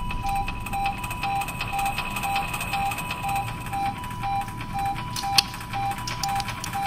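Medical alarm tones, as from a patient monitor or defibrillator: a steady high tone with a shorter, slightly lower beep repeating about twice a second. Faint clicks and handling noise sound underneath, with one sharper click about five seconds in.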